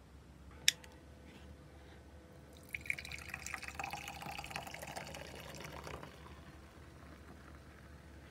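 A sharp click about a second in, then a carbonated drink poured from a can into a tall glass: splashing and fizzing, loudest for about three seconds, then fading as the glass fills.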